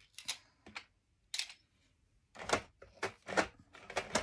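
Craft supplies being handled on a tabletop: a series of short clicks and knocks, a few scattered ones at first, then quicker and busier in the second half.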